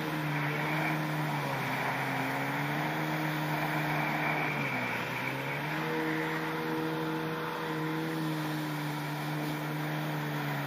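Yamaha SuperJet stand-up jet ski's two-stroke engine running at speed, with rushing water and wind noise. About four and a half seconds in, the engine note dips briefly and then picks up again.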